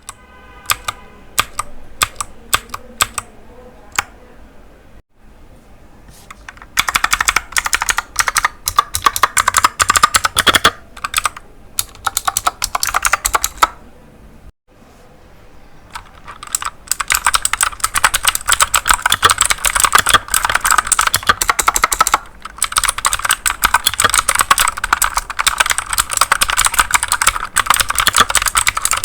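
Royal Kludge RK61 mechanical keyboard with clicky blue switches: a few single key presses, then fast continuous typing with a crisp click on each stroke, pausing briefly about halfway through before resuming.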